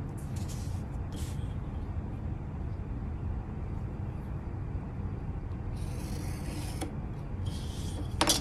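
X-Acto knife blade scratching along a steel ruler, scoring cardboard without cutting through. There are two short scratches in the first second and a half, a longer scratch of about a second roughly six seconds in, and another near the end, followed by a sharp click, all over a steady low background rumble.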